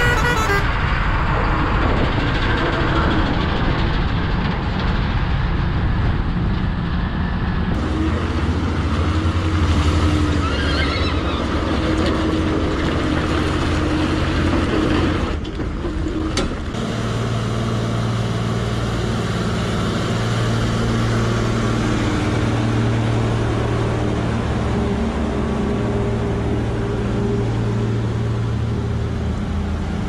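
A multi-tone musical truck horn holds its last note for about half a second, then cuts off. Road and wind rush follows while riding past trucks. From about 8 s, heavy truck engines run with a steady low hum, broken briefly twice.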